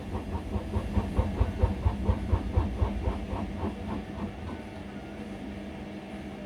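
Indesit washing machine drum, loaded with towels, knocking rhythmically about three times a second as it slows down from an extremely unbalanced final spin, over a steady motor hum. The knocks fade out about four seconds in.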